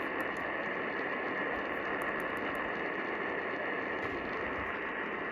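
Steady radio static and hiss from a weak AM station carrying dead air, with a few faint crackles near the middle: no voice message follows the emergency alert's attention tone.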